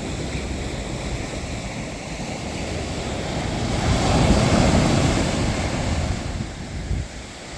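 Sea waves washing onto the shore, swelling to a peak about halfway through and then ebbing away near the end.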